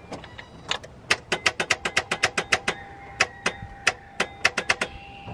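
Infiniti G35's starter clicking rapidly when the key is turned, about six clicks a second, with no crank and no start: typical of a starter fault or poor starter connections, which the owners suspect. A faint steady tone comes in a little under two seconds in.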